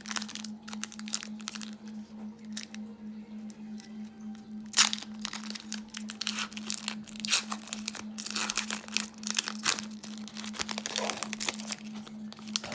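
Trading card pack wrappers being torn open and crinkled as the cards are handled: irregular crackling and rustling, with the loudest crackle about five seconds in. A steady low hum runs underneath.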